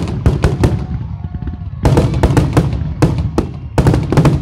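Fireworks finale: aerial shells bursting in rapid volleys of sharp bangs. There is a short lull about a second in, then the bangs come thick and fast again.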